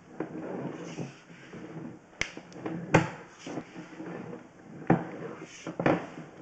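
Clatter of a sewer inspection camera's push cable being handled and pulled back: rustling with a handful of sharp knocks, the loudest about three seconds in.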